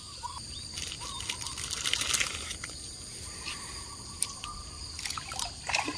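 Steady high-pitched buzzing of insects, with a few brief scattering noises about one and two seconds in as dry dog food is thrown onto a fish pond.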